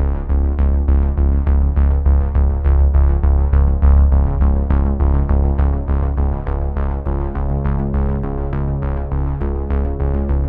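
Electronic background music with a steady beat, sustained synthesizer notes and a heavy bass line.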